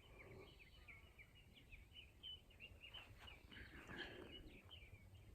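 Faint bird calls: a rapid, steady run of short high chirps, over a low background rumble.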